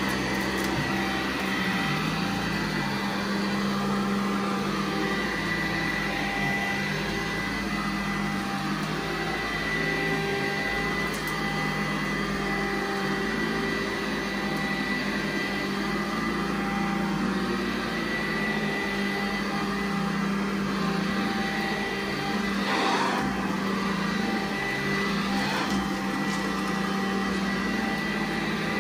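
Vacuum cleaner running steadily while vacuuming carpet: a constant motor hum with a thin high whine over it, and a couple of brief louder rushes about three-quarters of the way through.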